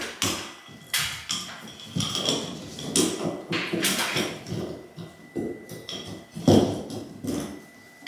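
Metal ceiling-fan support brace bar knocking and scraping against the wood as it is pushed up through the ceiling hole and worked into place between the joists, with irregular sharp knocks about once a second and the loudest knock late on. The bar is a tight fit in a cavity narrowed by a double joist.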